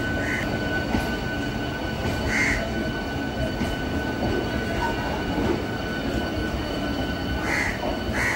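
South Eastern Railway electric local train rolling past on the next track, a steady rumble. Crows caw a few times over it, once near the start, once about two and a half seconds in and twice near the end.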